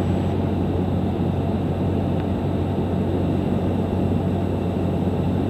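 Cessna 172 Skyhawk's four-cylinder piston engine and propeller droning steadily in flight, heard from inside the cockpit, with a strong low hum.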